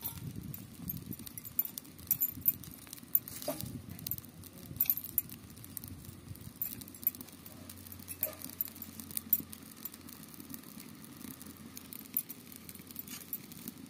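Irregular light clicks, taps and scrapes as roasted dried fish are picked out of the wood ash with metal tongs and gathered into a steel bowl.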